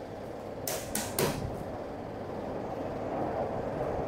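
Three short, sharp clicks and knocks close together about a second in, from things being handled on a tabletop, over a steady low background rumble.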